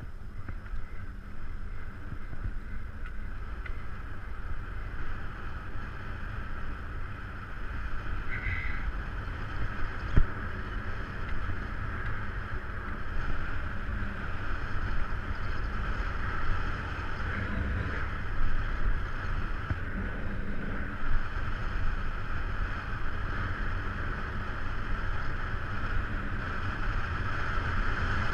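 Wind rushing over a mounted camera's microphone while riding along a road, a low rumble with a hiss that grows louder toward the end; one sharp knock about ten seconds in.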